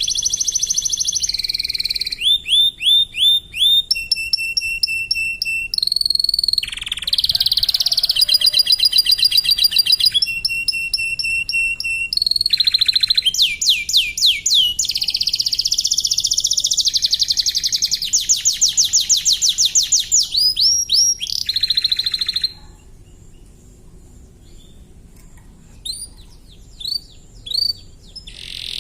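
Domestic canary singing a long run of fast trills, each a rapid string of identical sweeping notes, switching to a new trill every second or two, with some clear whistled notes in between. The song stops about two-thirds of the way through, leaving a few faint chirps near the end.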